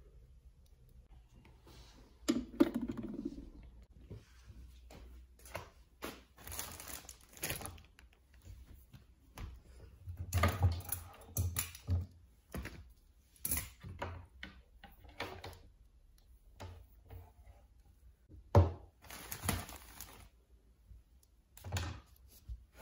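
Irregular clicks, knocks and thumps of things being handled and set down, with the loudest knock about three-quarters of the way through.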